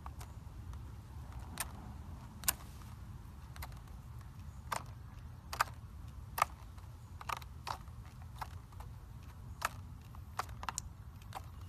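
Fingers pressing and poking into clear blue slime, making sharp clicks and pops at irregular intervals, over a low steady hum.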